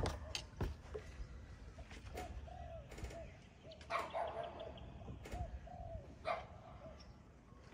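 A dove cooing in short arched phrases, a few times in small groups, with a few scattered sharp clicks and knocks.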